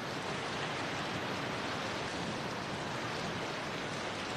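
A steady, even hiss of background noise with no distinct events in it.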